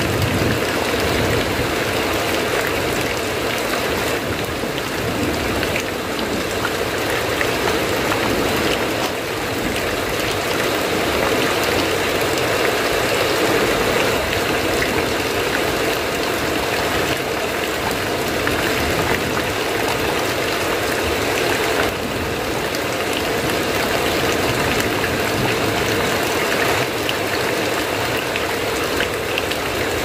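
Heavy rain falling steadily on a metal roof.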